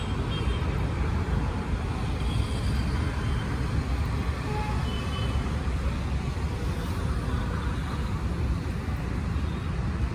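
Steady rumble of road traffic, an even low hum of passing vehicles with no distinct events.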